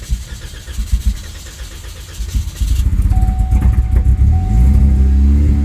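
2013 Cadillac ATS 2.0-litre turbocharged four-cylinder engine cranking with uneven thumps, then catching about two and a half seconds in and running up to a loud rough idle. It is misfiring. A steady high tone sounds alongside from about three seconds in.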